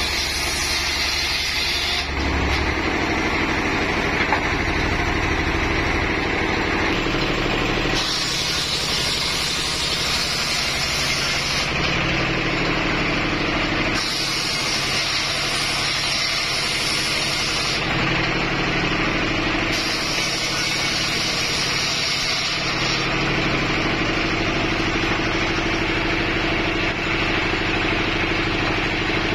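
Homemade engine-driven circular sawmill running, its belt-driven blade sawing through logs. The engine and the cutting hiss change abruptly every few seconds.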